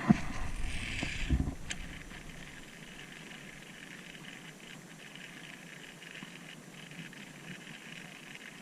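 A knock and a few low bumps in the first second and a half, then a faint, steady hiss.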